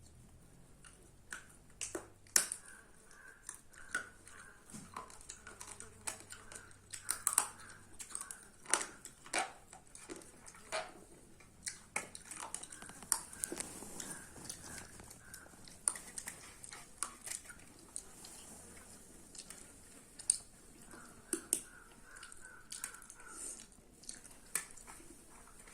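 Close-up mouth sounds of someone eating chicken curry and rice: chewing with irregular wet clicks and smacks.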